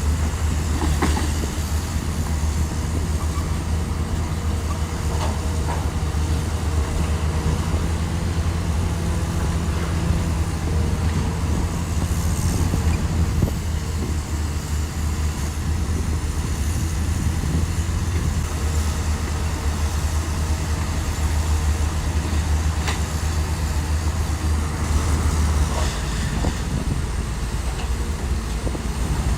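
Bulldozer diesel engine running steadily under load, with scattered metallic clanks; its low engine note changes and drops near the end.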